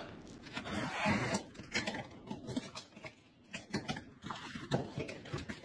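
Cardboard shipping box being handled and opened: irregular rustling and scraping with scattered short clicks and knocks.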